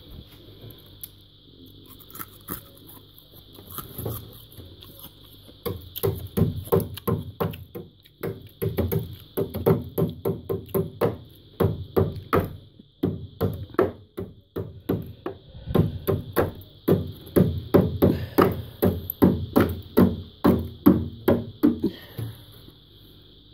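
Electronic background music: a held high synth tone over steady low notes, with an even drum-machine beat that comes in strongly about six seconds in and stops about a second before the end.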